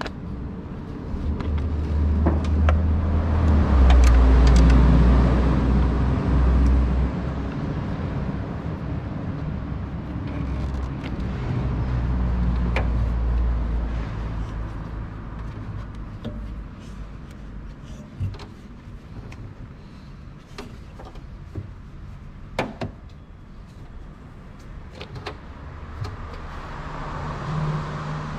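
Scattered sharp clicks and clinks of a ratchet wrench and metal parts in an engine bay, over a low rumble that swells twice, loudest about four seconds in and again around twelve seconds in.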